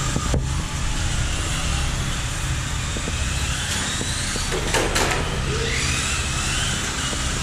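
Several Tamiya radio-controlled electric cars running on concrete, their motors whining up and down in pitch as they speed up and slow down over a steady rumble. Two sharp clicks about five seconds in.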